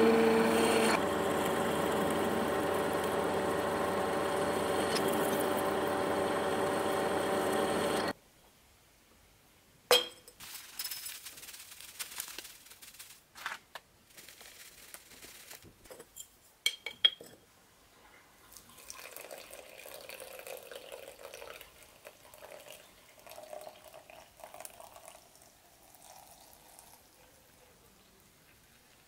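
Milling machine running with a twist drill boring into steel, a steady machine noise that cuts off suddenly at about eight seconds. Then come a few clinks and rustles as dry yerba mate is poured into a ceramic cup, and water is poured into the cup.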